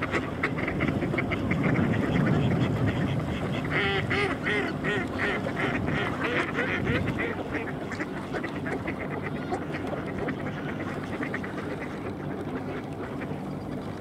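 A flock of mallards quacking in a rapid, overlapping chorus that thins out in the second half.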